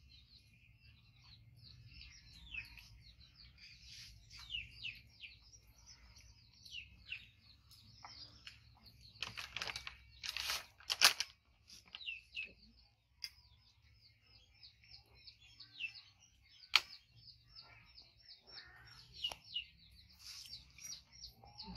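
Small birds chirping continually in short, high, falling notes, with a few sharp clinks and clatters of spoons against steel bowls, the loudest about eleven seconds in.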